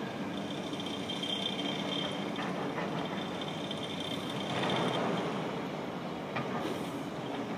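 Steady outdoor background noise: a low rumble with a faint high-pitched tone that comes and goes, swelling briefly about halfway through.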